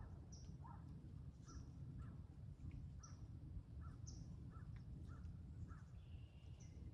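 Faint woodland ambience: birds give short calls over and over, several a second, with a brief steady whistled note about six seconds in, over a constant low rumble.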